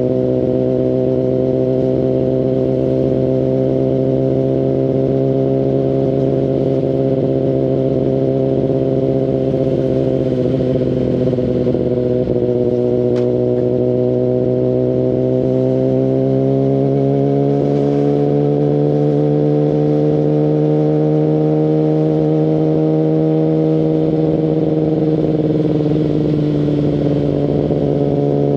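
Kawasaki Ninja ZX-10RR's inline-four engine through an Akrapovic Evolution Line full exhaust, running steadily at low revs while riding. The pitch dips a little about a third of the way in, then climbs slowly for several seconds as the bike gently accelerates, and eases off slightly near the end.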